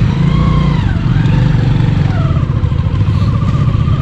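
Motorcycle engine running steadily at low speed, a deep pulsing rumble.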